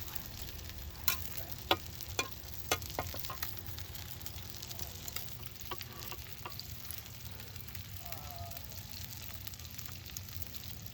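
Squid sizzling as it cooks over the heat of a wood-fired oven, with a few sharp clicks in the first few seconds.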